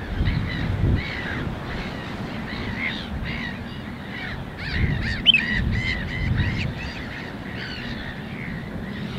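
Wild birds calling in the background: many short calls, a couple a second, busiest a little past the middle, over a low rumble.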